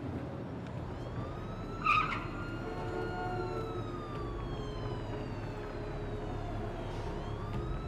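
Emergency-vehicle siren wailing in a slow rise and fall of pitch over a steady low rumble, with a brief louder blip about two seconds in.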